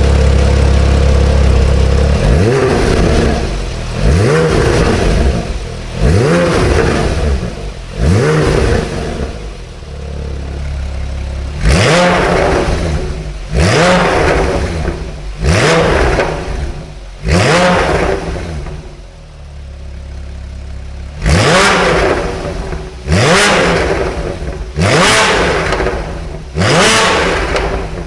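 Porsche 991 Carrera 4S's 3.8-litre flat-six, breathing through an iPE F1 edition valved exhaust, revved in a dozen quick blips from idle in three sets of four. Each rev climbs sharply to a high-pitched scream and falls back.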